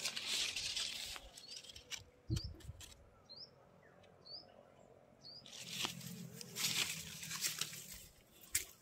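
Guava leaves and branches rustling close by in two spells, one about a second long near the start and a longer one later. A few short high chirps come in the quieter stretch between.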